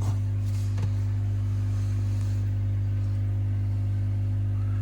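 AquaEl Ultra 1400 canister filter running just after being plugged back in: a steady low motor hum with fainter higher tones above it. There is a faint click near the start and another just under a second in.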